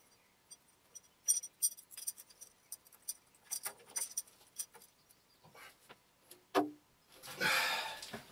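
Shims being tapped and slid into place under a steel lathe stand: a string of light clicks and clinks, then a longer, louder rush of noise near the end.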